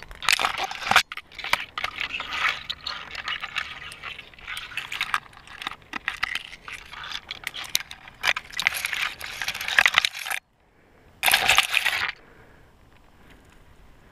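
Metal climbing gear clinking and jangling, with scraping, in dense irregular clicks. It cuts off suddenly about ten seconds in, and a short burst of the same comes about a second later.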